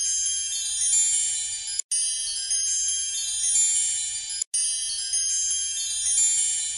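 Background music of high, tinkling chime tones, stopping dead for a split second twice, about two and a half seconds apart.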